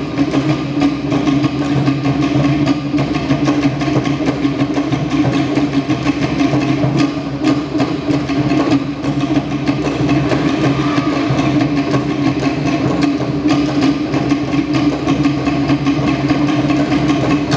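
Tahitian drum ensemble playing fast, dense, unbroken drumming, slit-log drums (to'ere) over a deeper drum, to accompany a dance.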